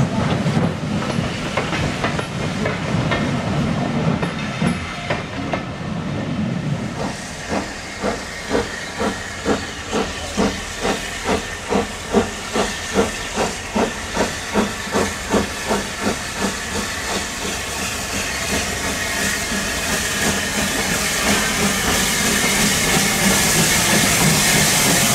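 Steam locomotive working, with a steady hiss of steam. From about seven seconds in, its exhaust chuffs come in a regular beat of about two a second, and the hiss grows louder near the end.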